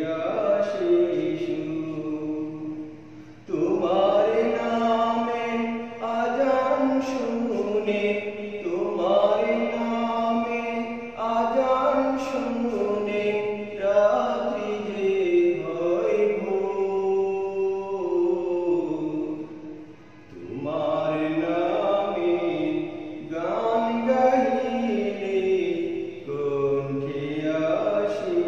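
A voice singing a Bengali Islamic devotional song in long, bending melodic phrases, with two short breaks for breath.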